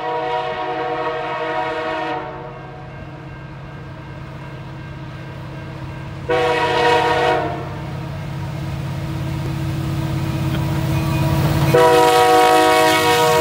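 Air horn of CN 5721, an EMD SD75I diesel locomotive, sounding three times: a long blast that stops about two seconds in, a short one around six seconds, and another long one starting near the end. Under it the low hum of the diesel engines grows steadily louder as the three-unit freight approaches and passes.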